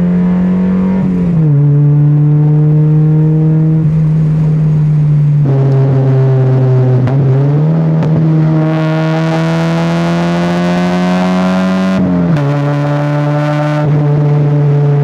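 Mazda NA Miata's 1.6-litre four-cylinder engine running while the car is driven. The engine note holds steady, drops abruptly about a second in, dips briefly near the middle, then climbs slowly and gets rougher for a few seconds before dropping sharply again near the end.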